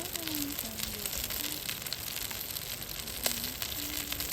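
Food sizzling on a grill: a steady hiss with scattered crackles and pops, and a sharper click a little after three seconds in.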